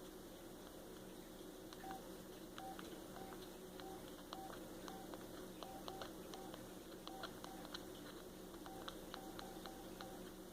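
Samsung SCH-R261 flip phone's keypad: a run of faint button clicks, each with a short beep, pressed irregularly one after another, as when scrolling through the ringtone menu.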